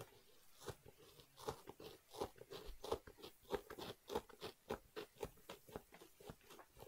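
Scalpel blade sawing through a shoe's upper and laces in short strokes: a rapid, irregular series of faint crunching clicks, several a second.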